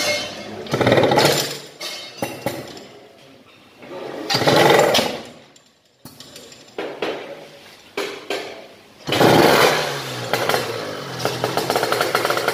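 Drag-race motorcycle engine being kick-started on a rear stand: it fires in short bursts and dies twice, then catches about nine seconds in and keeps running with a rapid, even beat.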